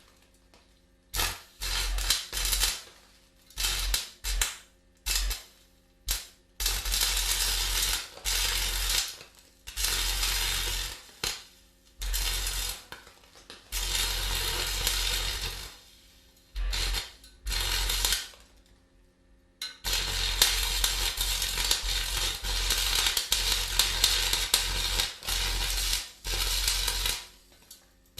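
Electric arc welding sizzling and crackling in repeated bursts as the arc is struck and broken again and again. The bursts are short and choppy at first, then run longer, several seconds at a time, in the second half, with a low hum under each burst.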